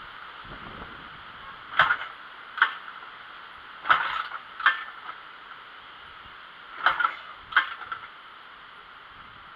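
A BSA motorcycle being kick-started without the engine catching: pairs of sharp mechanical clunks less than a second apart, repeated every couple of seconds.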